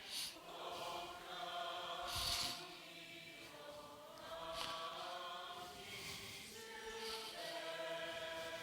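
A church congregation singing together, heard faintly, holding long sustained notes that shift in pitch every second or two.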